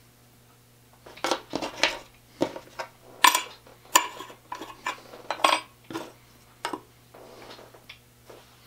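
Small metal parts, a steel washer among them, clinking and knocking on the aluminium base plate of a hobby drill press as they are set down and moved about: a run of sharp clinks over about five seconds, the loudest near the middle with a brief metallic ring.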